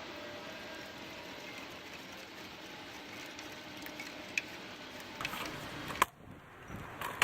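Small clicks and rustling as a tachometer cable is handled and hooked up behind a tractor's dash, over a steady faint hiss; a sharp click comes about six seconds in, after which the hiss drops away.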